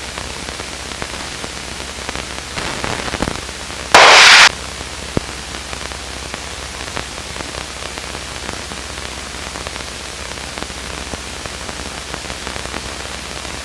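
Steady hiss of an aircraft radio and intercom feed over a low hum, with a few faint ticks. About four seconds in there is a single loud half-second burst of static.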